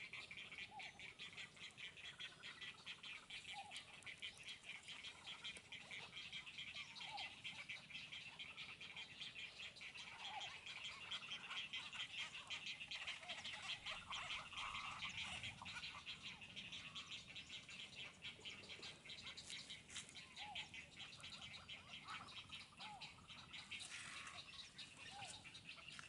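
Faint, continuous chorus of rapid pulsing calls, high-pitched and steady, with a few short bird chirps scattered over it.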